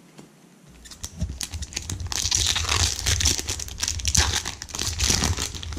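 Trading card pack wrapper being torn open and crinkled. It starts about a second in and goes on as continuous crackling.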